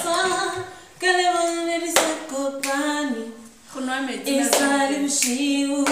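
A woman singing unaccompanied, holding long notes and sliding between them, with a few sharp claps.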